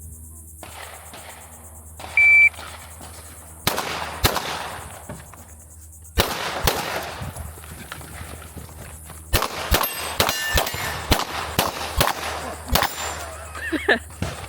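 Shot-timer beep, then 9mm pistol shots: two pairs a couple of seconds apart, then a fast string of about nine shots near the end, with steel targets ringing as they are hit.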